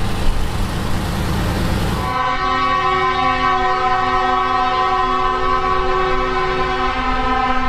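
A heavy truck passes close with tyre and engine noise. About two seconds in this gives way to a truck's multi-tone air horn, a train-style horn sounding one long steady chord.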